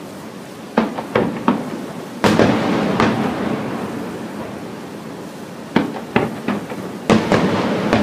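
Aerial firework shells bursting. A quick run of three sharp bangs comes about a second in, then a heavier boom with a long rolling echo. A second run of three bangs and another deep boom follow in the last couple of seconds.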